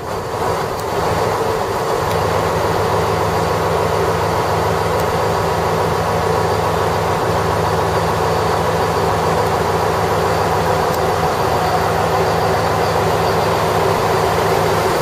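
Diesel railcar engine idling at a station platform: a steady, unchanging low engine note under a constant hiss.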